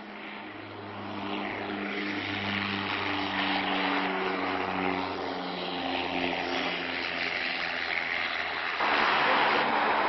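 Aircraft engines growing steadily louder as the plane comes along the runway, with a hum whose pitch slides lower over several seconds. The noise jumps suddenly louder about nine seconds in.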